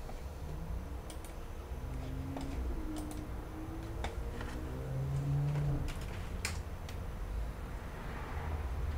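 Scattered clicks of a computer mouse and keyboard, a few seconds apart, over a low steady hum, with faint held tones in the background between about one and six seconds in.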